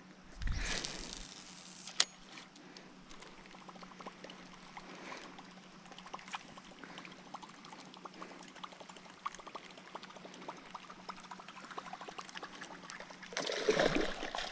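Fishing-rod cast: a swish about half a second in and a sharp click at two seconds, then faint scattered ticking as the lure is reeled in. Near the end, a largemouth bass strikes the lure at the surface with a loud, sustained splash.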